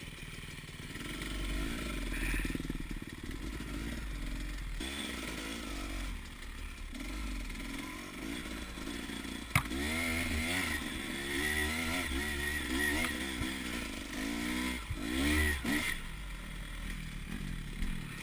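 Dirt bike engine running under way, its revs rising and falling again and again in quick throttle changes through the middle of the stretch. A single sharp knock comes about nine and a half seconds in.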